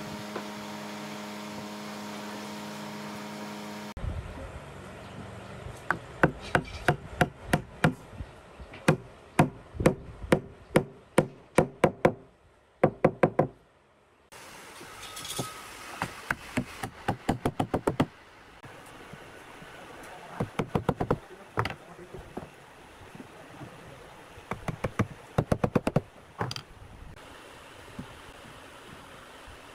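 A mallet taps wooden legs and joints home into the mortises of a curved wooden frame, in several runs of quick, sharp knocks, a few a second. A steady hum fills the first few seconds.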